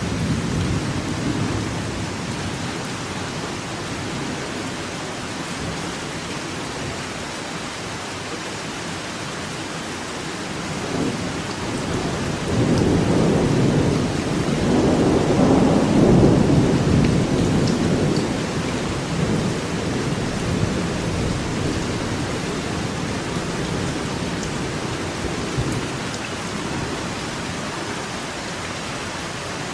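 Steady rain falling, with a long low roll of thunder that swells up about halfway through and slowly fades away.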